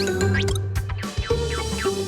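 Upbeat cartoon background music with a bouncy bass line and short sliding effect notes.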